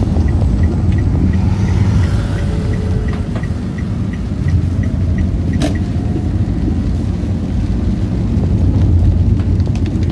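Steady low rumble of a car driving on a rain-soaked road, heard from inside the cabin. A fast, light ticking of about five or six ticks a second runs until about halfway, then stops with a single sharp click.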